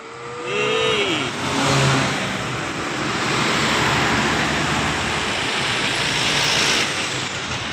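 A bus driving past close by: engine and road noise build up over the first second or so, stay loud, and ease slightly near the end. A short shouted call sounds at the very start.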